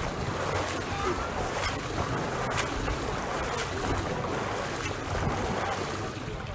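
Open-air swimming pool ambience: a steady wash of splashing and lapping water, with low wind rumble on the microphone and a few faint sharp splashes or clicks.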